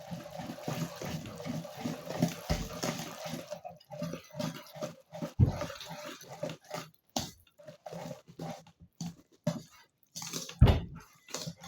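Pancake batter being mixed by hand in a bowl: irregular wet sloshing and scraping strokes, with a few heavier knocks against the bowl, the loudest about ten and a half seconds in.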